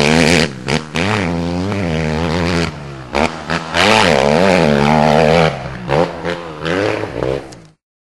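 Motocross bike engine revving up and down as the rider works the throttle, with several short dips when the throttle is rolled off. The sound cuts off suddenly near the end.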